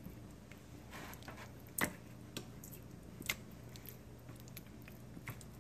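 Faint wet squishing of chicken pieces being turned by hand in barbecue sauce in a plastic bowl, with a few light clicks against the bowl, the sharpest just under two seconds in, over a faint steady hum.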